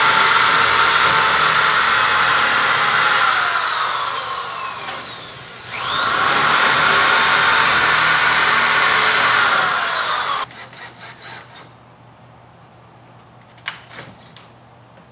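Corded electric drill boring holes for an aluminum storm-panel F-track in a wood wall, in two runs of about five seconds each. The motor's pitch falls as the bit bites in. The second run cuts off suddenly about ten seconds in, followed by a few light clicks.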